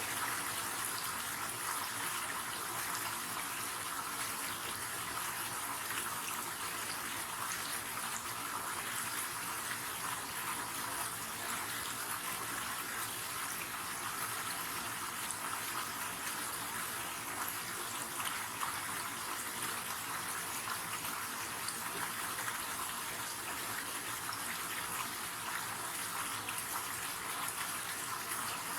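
River water flowing and rushing steadily, an even hiss of running water.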